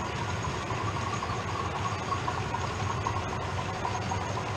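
Steady running noise of OO gauge model trains: a constant diesel-engine drone from a DCC sound-fitted model locomotive, with the low rumble of model wheels on the track.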